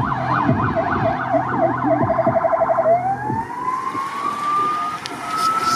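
Electronic siren cycling through its patterns: a fast rising-and-falling yelp about three times a second, a brief rapid warble about two seconds in, then a slow rising wail that holds high.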